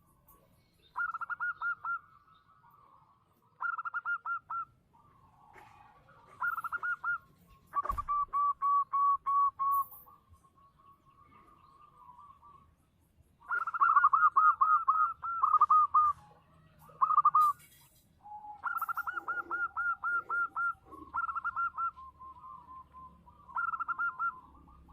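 Zebra dove (perkutut) cooing: about nine phrases, each a quick run of staccato notes, repeated with short pauses between them.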